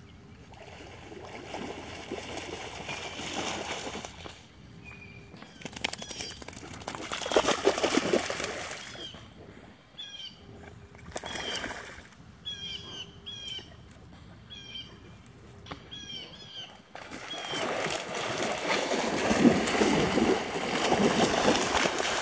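Dogs splashing through shallow pond water in three bursts, the loudest near the end. Between the splashes, a bird chirps over and over with short high notes.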